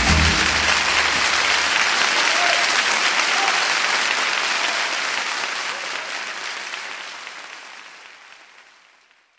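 Audience applauding at the end of a live song, over the last low notes of the accompaniment dying away in the first second. The applause fades out steadily over the last few seconds.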